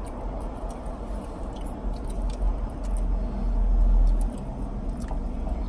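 Chewing and biting into a multi-patty burger, with small wet mouth clicks and smacks, over a low rumble that grows louder about three seconds in and drops back a little after four.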